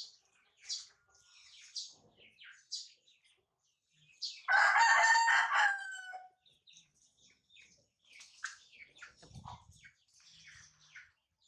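A rooster crows once about four and a half seconds in, loud and about a second and a half long, falling away at the end. Short high chirps and squeaks come every second or so around it.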